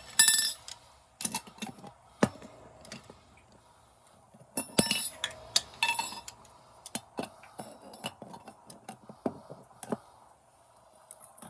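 Metal tools and copper pipe fittings clinking and knocking as they are handled and set down: scattered sharp knocks, some ringing briefly, the loudest near the start and about five seconds in.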